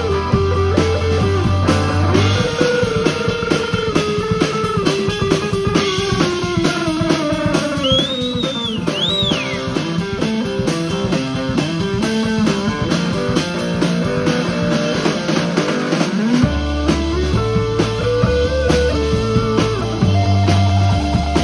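A live rock band plays an instrumental passage: electric guitar lead lines that slide and bend in pitch over a drum kit. The deep bass drops out about two seconds in and returns near the end.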